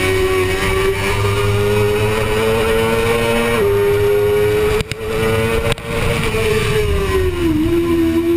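2005 Suzuki GSX-R600 inline-four sport bike engine at racing speed, heard from on board. The note climbs under full throttle with a gear-change step about three and a half seconds in, cuts out briefly twice near the middle, then falls as the bike slows for the next corner and settles at a lower pitch near the end.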